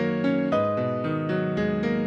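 A Panasonic KX-TGA682EX cordless phone handset playing one of its polyphonic ringtones: a piano-like melody of quick notes over sustained chords.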